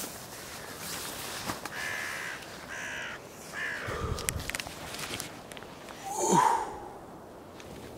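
A few short calls in the first half, then a man's voice calling out once, loud and falling steeply in pitch, a wordless morning exclamation.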